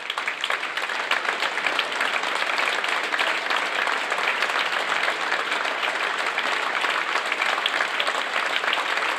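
Audience applauding with dense, steady clapping.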